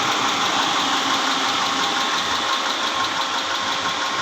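Mitsubishi Pajero 6G74 V6 gasoline engine idling steadily, with a knocking sound from inside the engine.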